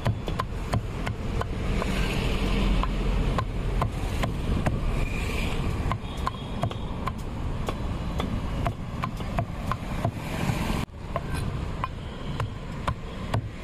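Rapid, even chopping of a large broad-bladed knife through raw jackfruit into a wooden chopping block, about three strokes a second, over a low background rumble. The strokes break off briefly about eleven seconds in.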